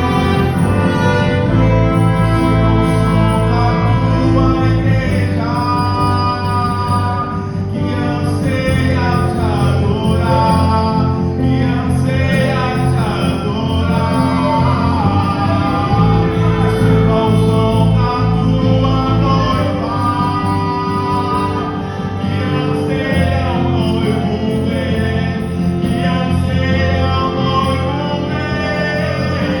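Gospel song: a singer over instrumental backing, steady throughout.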